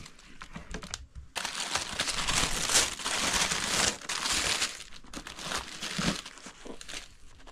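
Paper shoe-box packaging crumpling and rustling as it is handled. It grows loud and dense about a second and a half in, then thins to lighter, scattered crinkles.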